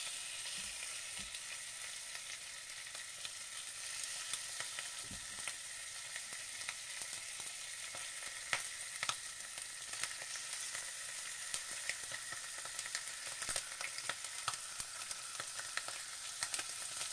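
Raw chicken skin frying in hot oil in a non-stick frying pan: a steady sizzle scattered with many short, sharp crackles and pops, as more pieces of skin go into the oil.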